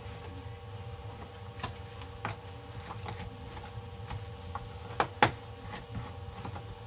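Light clicks and taps of small screws being handled and set into a ThinkPad 600 laptop's plastic case, with two sharper clicks close together about five seconds in, over a faint steady hum.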